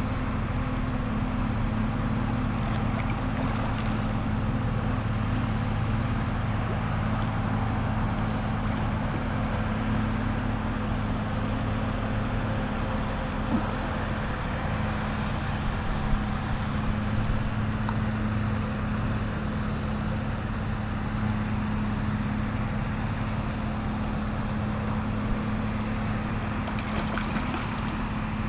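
Shallow stream water rushing steadily over a gravel bed, with a low steady hum underneath.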